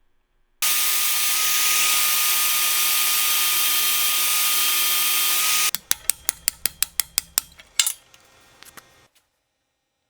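A steady hiss that starts suddenly about half a second in and stops abruptly about five seconds later, followed by a quick run of sharp mechanical clicks, about six a second, with a louder single click near the end.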